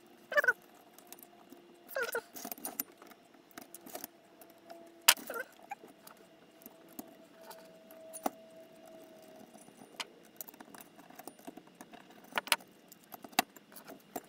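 Small screws, nuts and aluminium servo brackets clicking and clinking as a servo is bolted in with a screwdriver: scattered sharp metal clicks, with a couple of short scraping squeaks near the start.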